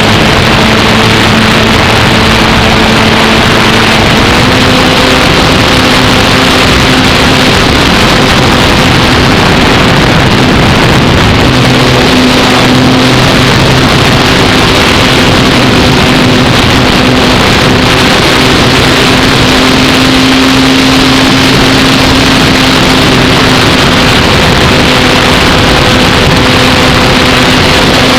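Electric motor and propeller of an Apprentice S15e RC plane droning steadily in flight, heard from an onboard camera, with heavy wind rush over the microphone. The pitch steps up slightly about four seconds in and wavers a little with throttle after that.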